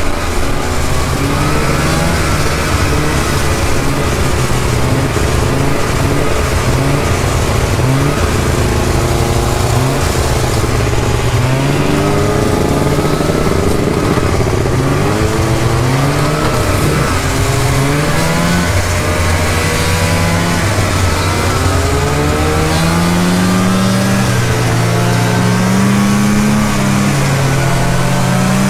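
Snowmobile engine running underway, heard from aboard a moving sled, its pitch climbing and dropping again and again as the throttle changes, over steady rushing noise.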